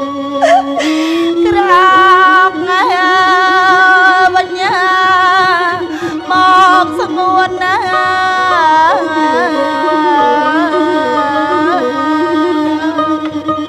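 Lakhon bassac music: a long, heavily ornamented melodic line of held notes with wide wavering and quick turns, sung over a steady accompanying note.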